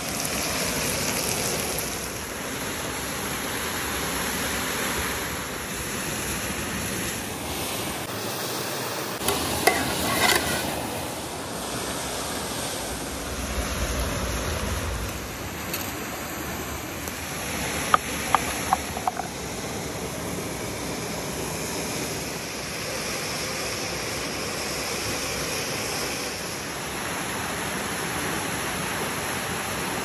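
Steady rush of a forest stream and small waterfall. A few sharp clicks come about a third of the way in, and a quick cluster of knocks follows past the middle.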